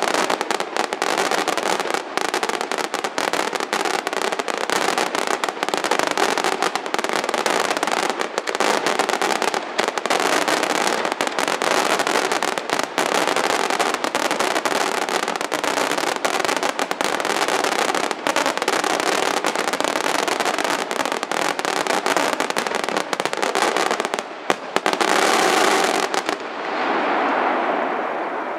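Professional aerial fireworks display in a dense barrage: a rapid, continuous stream of bangs and crackling shell bursts. About 26 seconds in the bangs stop and a hiss swells and then fades.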